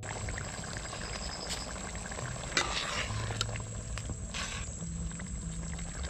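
Snail gravy bubbling at a steady boil in a large aluminium pot, being boiled down to reduce the water. A ladle scoops through it twice, about two and a half and four and a half seconds in.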